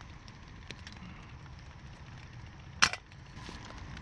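A single sharp knock about three seconds in, over a quiet background with faint scattered ticks.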